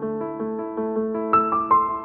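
Background piano music: a steady run of gently fading notes, several a second, with louder higher melody notes coming in about two-thirds of the way through.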